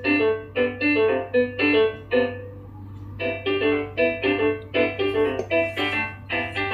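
A phone ringtone melody of short piano-like notes, about three a second with a brief pause near the middle, played through a bare woofer wired to an active speaker's amplifier output, over a steady low hum. The sound coming out shows that this amplifier channel is working.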